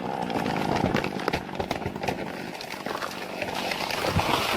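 A cut tree coming down: a run of irregular cracks and knocks of snapping wood and branches over a rough, noisy background.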